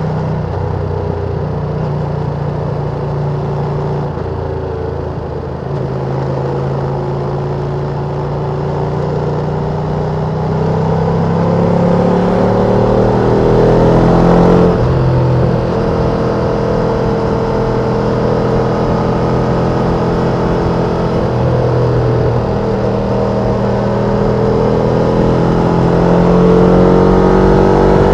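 Ducati Panigale V2's V-twin on its stock exhaust, pulling up through the revs under way. The pitch climbs, drops abruptly about halfway through at an upshift, then climbs again near the end.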